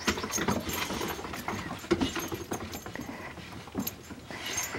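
Boxer puppies and an adult boxer scrambling on a wooden deck: a scatter of quick, irregular paw taps and scuffs on the boards, mixed with brief puppy noises.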